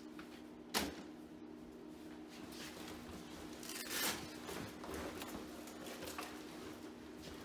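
Firefighter turnout gear rustling as it is pulled on in a hurry. There is a sharp snap about a second in and a louder rustle of the heavy turnout coat going on about four seconds in, over a steady low hum.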